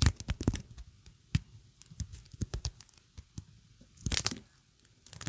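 Close-up sticky peeling sounds: a tacky surface pressed and pulled apart, giving irregular short crackles and snaps, with a quick run of them about four seconds in.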